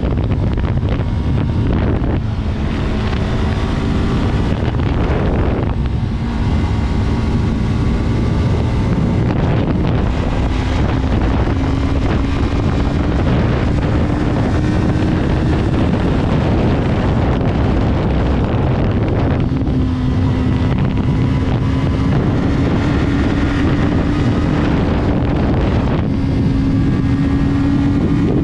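Yamaha R3's parallel-twin engine running under way, its pitch climbing slowly, then dropping back and picking up again several times, with steady wind rush on the microphone.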